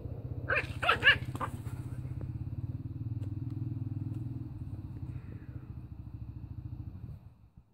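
A puppy yaps about four times in quick succession about a second in, over a steady low pulsing rumble that stops abruptly near the end.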